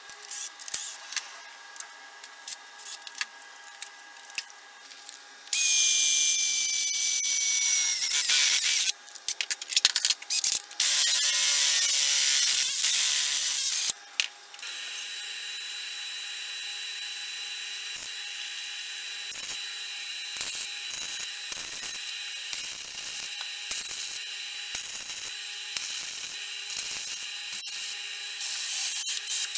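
Electric drill boring through a steel tube held in a bench vise: loud bursts of high whine whose pitch sags slightly as the bit cuts, coming about a fifth of the way in and lasting several seconds. After that comes a quieter, steady tool sound with scattered clicks and taps.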